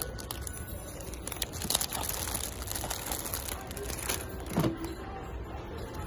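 Clear plastic bags of blue plastic Plarail track pieces crinkling and rustling as they are handled on a display hook, with scattered small clicks.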